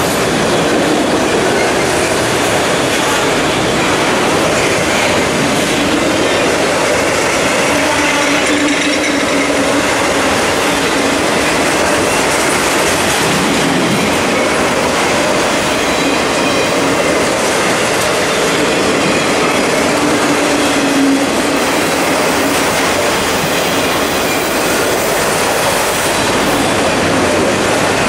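Multilevel autorack freight cars rolling past: a steady, loud rumble and clatter of steel wheels on rail, with a low wheel squeal rising out of it now and then.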